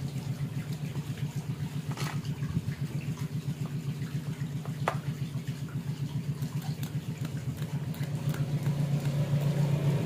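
Washing machine spin-dryer motor powered from the mains without its capacitor, humming steadily without starting: a capacitor-start motor with no capacitor stalls until its shaft is spun by hand. The hum grows louder near the end, with a couple of sharp clicks along the way.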